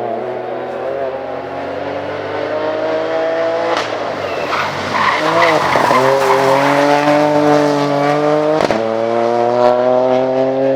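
Ford Fiesta R2T rally car's turbocharged three-cylinder engine pulling up through the revs. About four seconds in the engine note dips and tyres squeal as the car slows into a corner, then the engine rises steadily again under hard acceleration.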